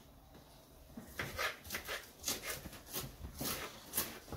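Kitchen knife slicing through celery stalks and striking a wooden cutting board: a quick, irregular run of crisp cuts, about two to three a second, starting about a second in.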